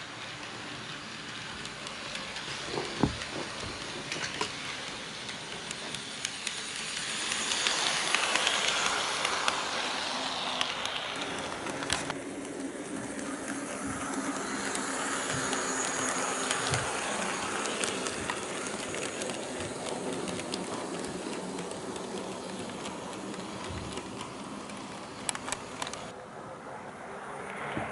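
HO gauge model train, an EF81 electric locomotive hauling coaches, running on sectional track: a steady rumble of wheels and motor with light clicks over the rail joints, growing louder as it passes close about eight seconds in.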